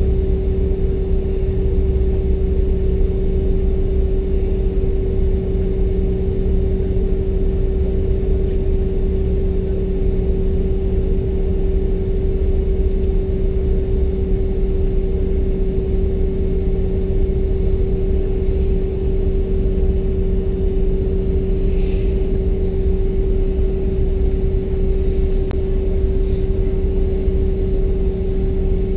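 Steady cabin hum inside a Bombardier CRJ-700 parked at the gate: a low rumble under a constant high-pitched tone. A couple of faint clicks come through partway along.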